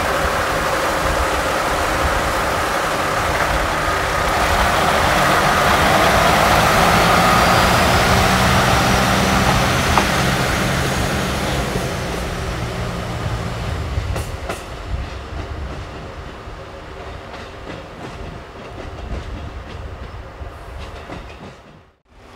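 Diesel train running past, its engine and wheels loudest a few seconds in, then fading away after about twelve seconds, with a few clicks of wheels over rail joints.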